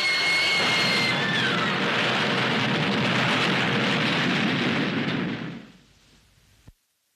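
A woman screaming, one long high scream that falls away about a second and a half in, over a loud rumbling roar that fades out around six seconds in.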